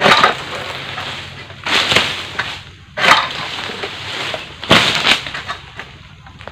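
Oil palm fronds being cut with an egrek, a sickle on a long pole: four loud crunching, splintering cuts about a second or two apart, each followed by the rustle of the falling frond's leaves.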